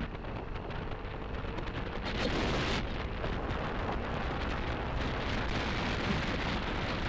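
Riding motorcycle with wind rushing over the microphone and wet road noise, a dense rumbling hiss that grows louder about two seconds in.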